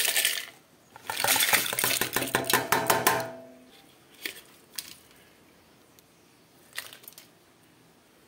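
Dried red chillies and tomato halves tipped from a glass bowl into a steel pot: a short rush and then about two seconds of dense rattling and clattering against the metal, with the steel ringing briefly as it dies away. A few scattered clinks of a steel spoon on a steel plate follow.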